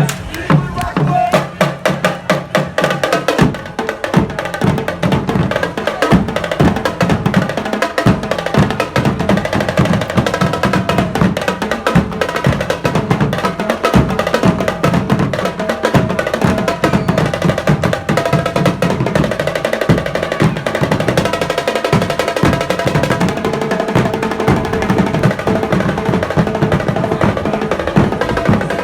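Drums played live in a fast, dense rhythm of rapid strokes, running on without a break.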